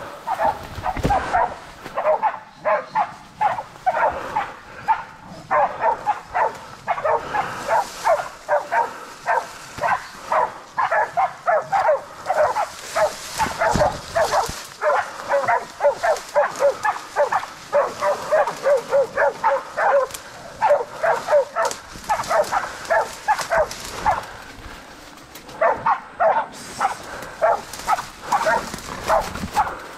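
Pig-hunting bailing dogs barking in a steady, rapid run of about two to three barks a second, with a short lull near the end: the dogs are holding a wild pig at bay.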